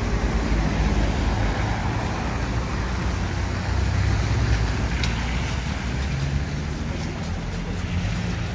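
Road traffic on a city street: a steady rumble of car engines and tyres with a low engine hum.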